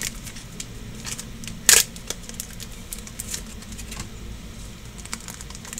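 Scattered small clicks and crinkles from a foil Pokemon booster pack being handled, with one sharp, louder click just under two seconds in.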